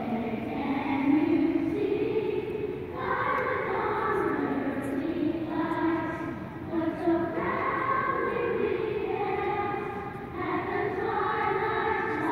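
Children's choir singing together in long held notes, phrase after phrase.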